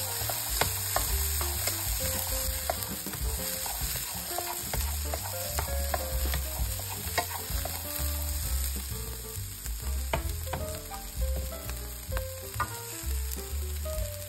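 Chopped green beans and sweet chilli sizzling in a non-stick wok while being stir-fried, with a wooden spatula scraping and tapping against the pan in frequent short clicks.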